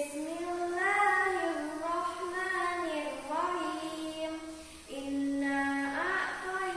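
A young girl singing unaccompanied, a single voice holding long notes that slide up and down in a melodic line, with a short break about five seconds in.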